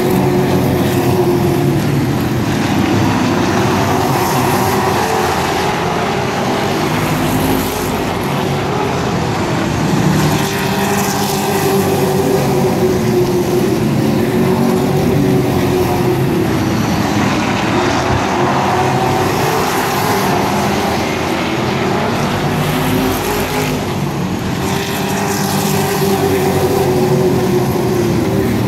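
Pack of stock-car race trucks running at speed around a short oval, their engines blending into a loud, steady drone. The pitch sweeps up and down several times as the trucks come past and move away.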